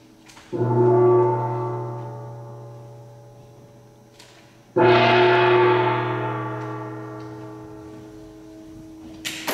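Large gong struck twice, about four seconds apart, each stroke ringing with a deep hum and slowly dying away. Applause breaks out at the very end.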